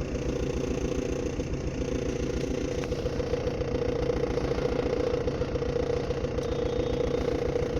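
Maruti Dzire's 1.3-litre four-cylinder diesel engine idling steadily with a misfire; the scan tool logs fault P0201, an open circuit in the cylinder 1 injector.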